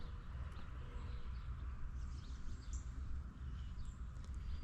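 Faint bird chirps over a low, steady outdoor rumble.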